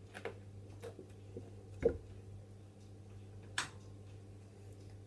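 A few light clicks and knocks from a plastic oil bottle being capped and put down, the loudest a dull knock about two seconds in, over a steady low hum.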